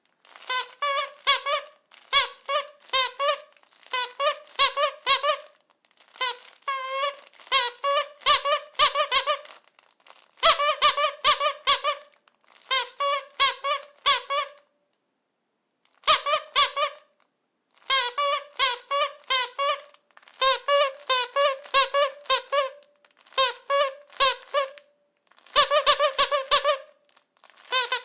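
Squeaky dog toy squeezed over and over, giving quick runs of short high-pitched squeaks with brief pauses between the runs.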